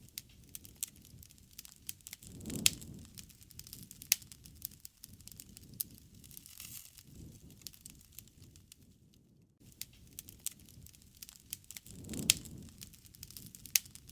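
Wood fire crackling, with frequent sharp pops and snaps. Twice, about two and a half seconds in and again near the end, a low rushing sound swells for about a second.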